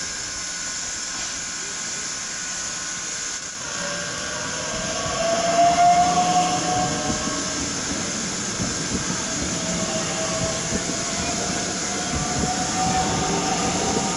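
Talent 2 electric multiple unit pulling out and running past, a rising whine over the running noise of its wheels on the rails. The sound builds from about four seconds in and is loudest soon after.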